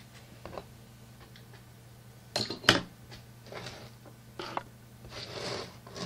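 Small metal jaw harp parts and hand tools being handled on a wooden board. There are two sharp clicks a few tenths of a second apart near the middle, followed by softer rustling and shuffling.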